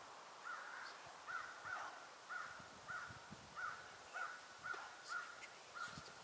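Turkey yelping: a steady series of about a dozen short yelps, roughly two a second.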